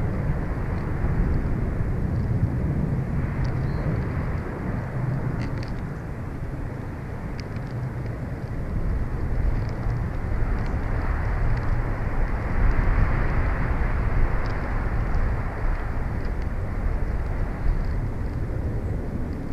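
Steady outdoor rushing noise, most of it deep and low, that swells and eases about halfway through, with faint short high ticks scattered through it.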